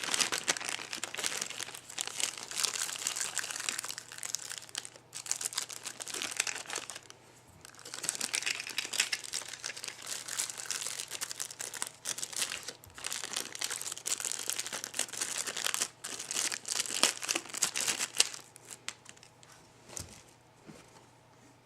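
Packaging being handled and crinkled, in stretches of dense crackling with brief pauses, dying away near the end. A faint steady low hum runs underneath.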